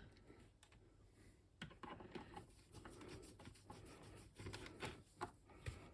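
Faint, irregular small clicks and taps of hand tools and computer case parts being handled.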